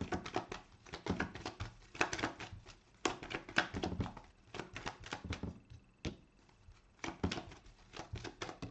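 Deck of tarot or oracle cards being shuffled and handled: rapid runs of little card clicks, several runs about a second long with short pauses between them.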